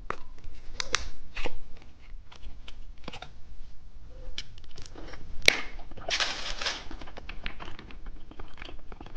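Plastic wrapper of a cheese stick being handled and torn open: a run of small crinkles and clicks, with a sharp snap and then a longer tearing rustle a little past halfway.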